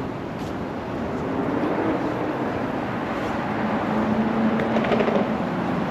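City street traffic: cars passing close by on the road beside the sidewalk, a steady mix of engine hum and tyre noise that gets a little louder around four seconds in.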